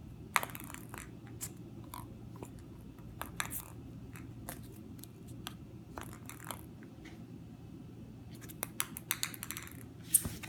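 Ping pong ball being batted about by a cat: scattered sharp clicks and knocks as it is struck and bounces, with a quick run of bounces near the end.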